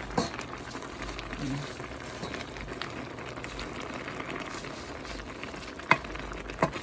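A wooden spoon stirring leafy spinach into a steel pot of boiling chicken broth: a steady bubbling hiss with the rustle of the leaves, and a few sharp knocks of the spoon against the pot, the loudest about six seconds in.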